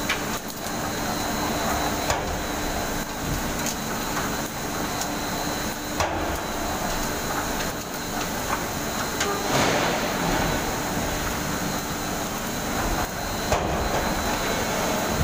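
Steady clatter and rumble of a palm oil mill's fruit conveyor carrying oil palm bunches and loose fruitlets, with irregular knocks as fruit drops down the chute.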